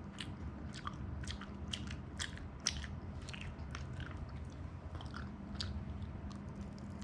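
A person chewing fried food close to the microphone, with a steady run of crisp, wet crunches a few times a second. Near the end comes a bite into a piece of boneless Korean fried chicken in sticky sweet-spicy yangnyeom sauce.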